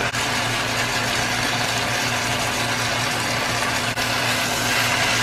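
A steady mechanical hum over an even hiss, dipping very briefly twice, about four seconds in the second time.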